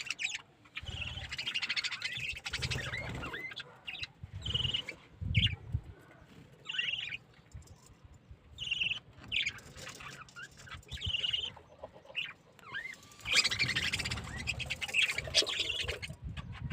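Budgerigars chirping and chattering: short high calls and rising squeaks, repeated in clusters with pauses between, busiest near the end.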